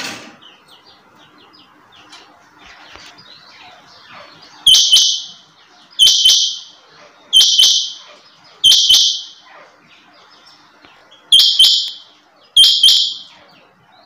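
Rain quail (chinga) calling: six loud, harsh metallic calls, each opening with quick clicks, about one every second and a half, with a longer pause after the fourth. Faint chirping runs underneath.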